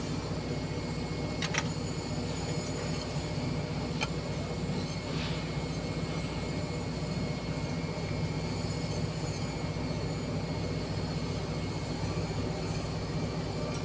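Heavy diesel engine of a Kobelco crawler crane running steadily, a constant low rumble, with a couple of faint clicks.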